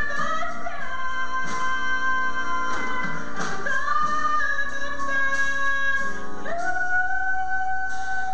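A woman singing a gospel solo through a microphone, holding long notes. From about two-thirds of the way in she holds one long steady note.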